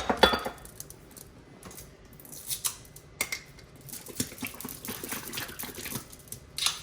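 A sharp ringing clink at the start, then heavy cream being poured into a measuring cup and a bowl of eggs, with a few light clicks of kitchenware.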